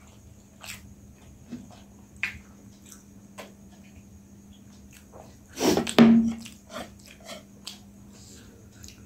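Eating sounds at a table: small clicks and smacks of chewing and chopsticks on a plate. About five and a half seconds in comes a louder cluster, ending in a sharp clink, as a glass of juice is drunk from and set down.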